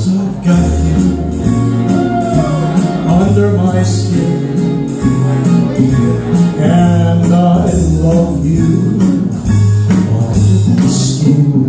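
Italian pop backing track playing loud, with a bass line and a steady beat, and a man singing live over it into a microphone.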